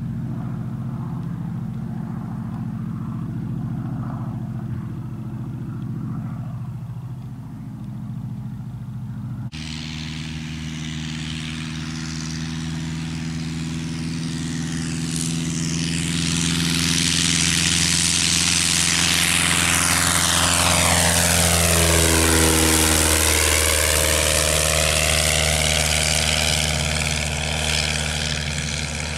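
A Bücker Bü 180 Student's 60 hp Walter Mikron inverted inline engine runs steadily at lower power. An abrupt cut about ten seconds in brings it to full power on the take-off run. It grows louder as the aircraft approaches, and the pitch drops as it passes and climbs away.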